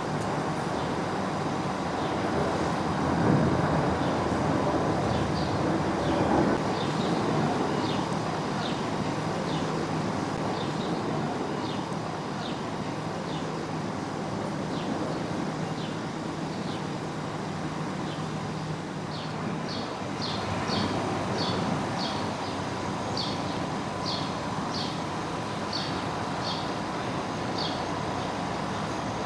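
Steady noise of motorway traffic mixed with the engine noise of an airliner on approach. Short, high chirps repeat all through, coming faster in the second half, like a small bird calling.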